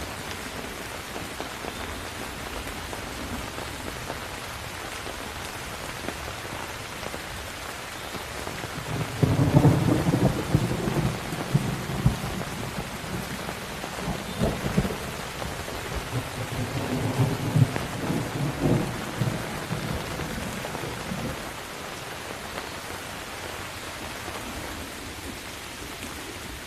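Steady heavy rain with a long roll of thunder that breaks in suddenly about a third of the way through and rumbles on with several peaks before fading out, leaving the rain alone near the end.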